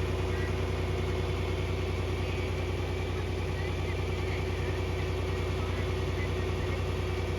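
A vehicle engine running steadily at low revs, with an even, unchanging hum.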